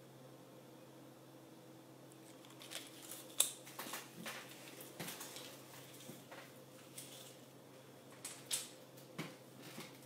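Faint room hum, then from a couple of seconds in, scattered light clicks, clinks and rustles of costume jewelry and its hooks being handled on a pegboard display, the sharpest click about three seconds in.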